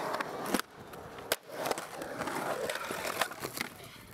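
Skateboard wheels rolling on a concrete bowl, with several sharp clacks of the board. A knock near the end as the skater falls.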